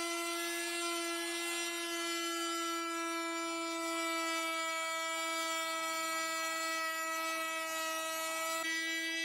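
Electric plunge router running at full speed with a steady high whine as its bit cuts along a plywood sheet.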